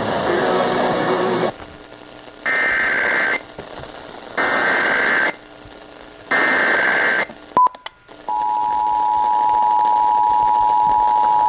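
Emergency Alert System data bursts over a broadcast: a burst of noisy data, then three short screeching tone bursts about two seconds apart. After a click, the steady two-tone EAS attention signal starts about eight seconds in.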